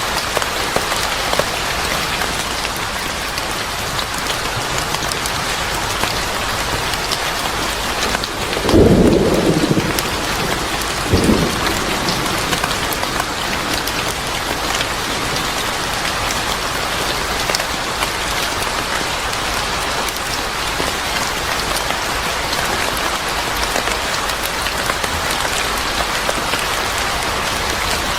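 Steady rain hissing. A low rumble of thunder comes about eight and a half seconds in, and a shorter clap of thunder follows two seconds later.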